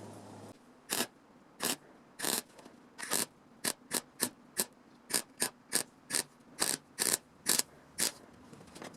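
Repeated short rasping strokes of a hand tool working metal, about two a second at uneven spacing, starting about half a second in.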